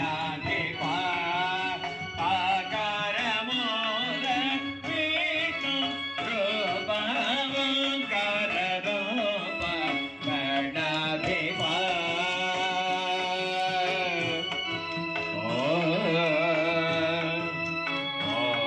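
Indian devotional song playing over a loudspeaker: a wavering solo singing voice with hand-drum percussion and instruments.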